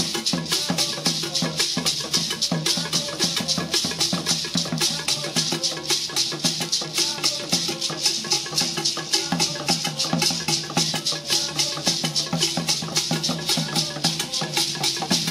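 Ghanaian traditional percussion: several gourd rattles shaken together in a fast, steady rhythm over hand-played barrel drums.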